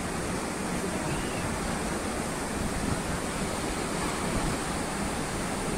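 Sea waves breaking on the shore: a steady rush of surf.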